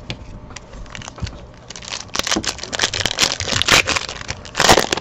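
A foil trading-card pack wrapper being torn open by hand, crinkling and crackling, with the loudest tear near the end.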